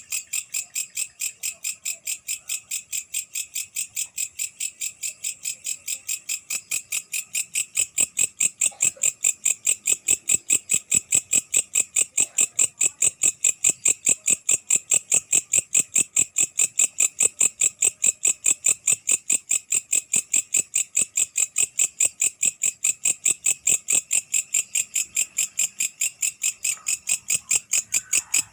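Katydid (night-singing bush cricket) calling: an unbroken, even train of shrill, high-pitched pulses at about four a second, growing louder about eight seconds in.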